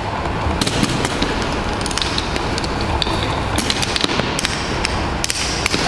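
Rope and cord rustling and rubbing as rope-access rigging is handled, with scattered sharp clicks and clinks of carabiners and metal devices.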